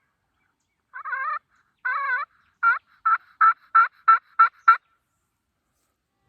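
Wild turkey calling: two drawn-out wavering notes, then a quick run of about seven short notes at roughly three a second, ending about five seconds in.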